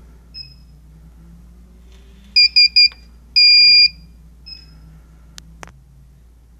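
Solaris infrared barrier receiver column's buzzer, entering alignment mode: three quick high beeps, then one longer beep that marks cell one, the bottom beam. A faint single beep comes just before and another just after, and two light clicks follow near the end.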